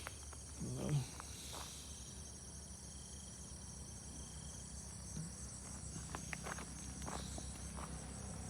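Faint, steady chirring of insects in the background, with a few soft ticks a little past halfway.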